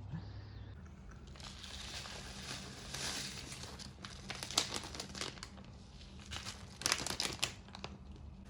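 Food packaging being handled, crinkling and rustling, with clusters of sharp crackles about halfway through and again near the end.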